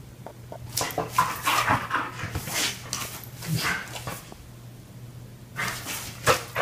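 Husky vocalizing in short barks and whines: a run of quick bursts starting about a second in, then another cluster near the end.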